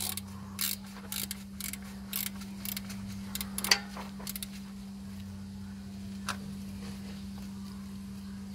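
A 12 mm spanner clicking and clinking on the metal of the EGR pipe bolts as they are worked loose: a run of light, irregular metallic clicks over the first few seconds, with one sharper clink near four seconds in and a last one around six seconds. A steady low hum runs underneath.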